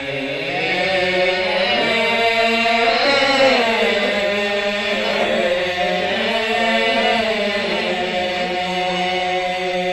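A man chanting verses of a Sasak hikayat in the traditional tembang style: a slow, unaccompanied melismatic vocal line of long held notes that bend and waver, sung into a microphone.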